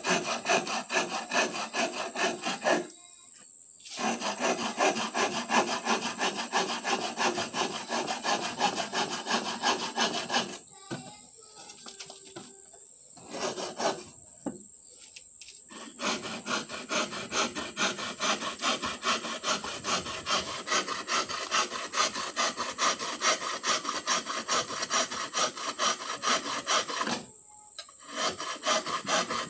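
Small hand saw cutting through a wooden board in quick back-and-forth strokes, in several runs with short pauses: about three seconds in, for a few seconds in the middle, and once near the end.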